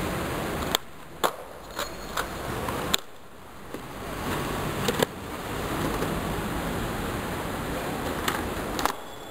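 Skateboard wheels rolling on rough stone paving, with several sharp clacks of the board's tail and deck striking the ground as flatground tricks are popped and landed.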